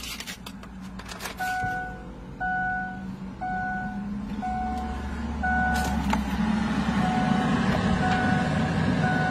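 Car warning chime beeping steadily about once a second, each beep a short clean tone, with a low engine-like rumble growing underneath from about halfway and a few sharp handling clicks near the start.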